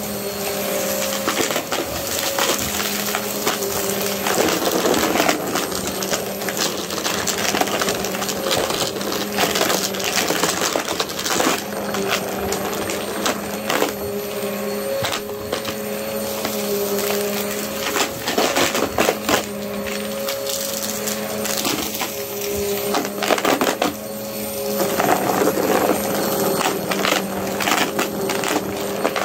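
Upright vacuum cleaner running with a steady motor hum, with rapid clicks and crackles throughout as small hard bits of debris are sucked off the carpet and rattle into the dust bin.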